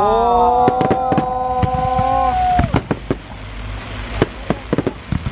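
A fireworks display going off with sharp bangs and crackling. For the first two and a half seconds several whistling tones rise and then hold steady before cutting out.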